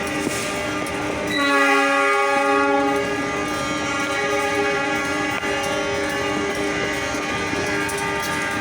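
Several diesel locomotive horns sounding at once, held in overlapping steady chords. Another, louder horn joins about a second and a half in.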